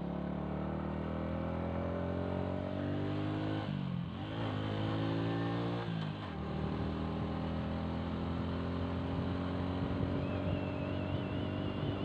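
Small motorbike engine running under way. Its pitch climbs, dips sharply about four seconds in and again about six seconds in, then holds steady.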